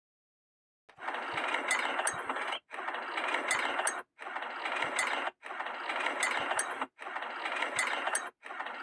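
Train sound effect: a clip of mechanical clattering with sharp clicks, played about six times in a row, each time cut off abruptly by a short silent gap. It starts after about a second of silence.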